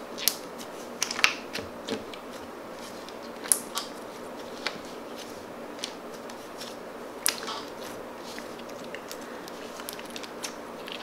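Clear jelly slime packed with miniature fake candies being squeezed and pressed by hand, giving irregular crunchy crackles and clicks, with a few louder pops, over a faint steady hiss.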